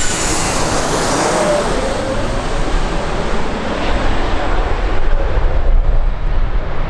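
Jet airliner passing close, a loud rush of engine noise whose high edge fades away over a few seconds, with wind rumbling on the microphone and growing near the end.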